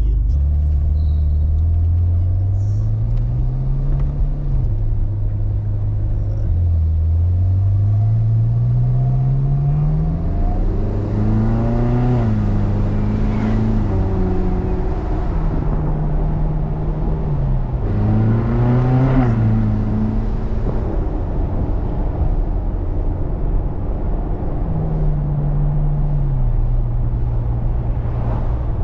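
Ferrari California's V8 engine pulling through the gears, heard from inside the cabin. Its pitch climbs and drops back at each upshift, with two harder bursts of revs about twelve and nineteen seconds in, then it settles into steady cruising with one more shift near the end.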